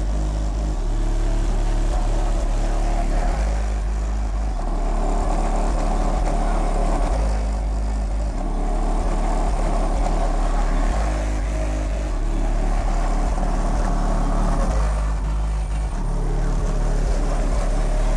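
Bass-heavy music played loud through a car audio system's subwoofers, driven by American Bass VFL Hybrid 4800 amplifiers and heard from outside the car. Deep bass notes dominate, changing every second or so.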